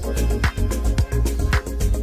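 Background music with a steady dance beat.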